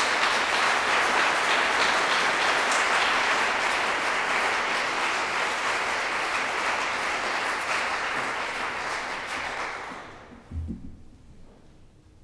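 Audience applauding steadily, dying away about ten seconds in. Shortly after, a single low thump.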